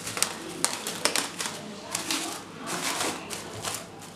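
Plastic cling film crinkling and crackling in irregular bursts as hands smooth and press it over a bowl of dough.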